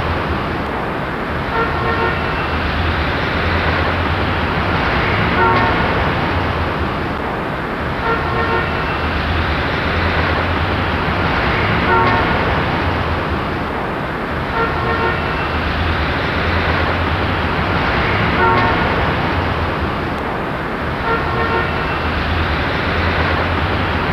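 City street traffic ambience: a steady roar of passing vehicles, with short car-horn honks sounding about every three seconds.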